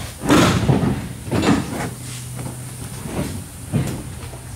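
A fiberglass car body being shifted by hand on its chassis: a few knocks and scrapes, the loudest about half a second in, with a low steady hum joining in the second half.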